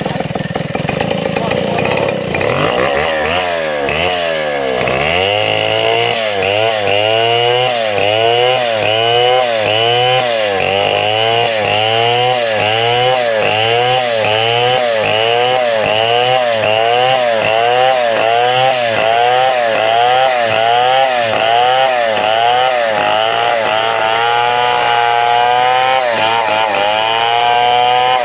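Chainsaw engine running under load, its pitch dipping and rising again in a steady rhythm about twice a second. The rhythm sets in a couple of seconds in.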